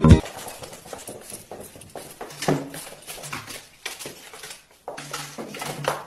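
A cat's paws and claws tapping and scrabbling on a wooden floor, a run of light irregular taps, with a few short low sounds in between.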